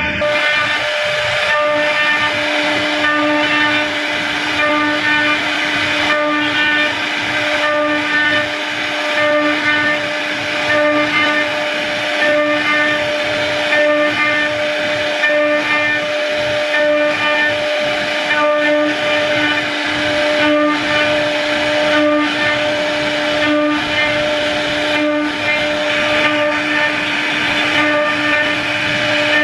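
CNC router spindle carving a wooden panel: a steady high-pitched whine with overtones over rough cutting noise as the bit works through the wood.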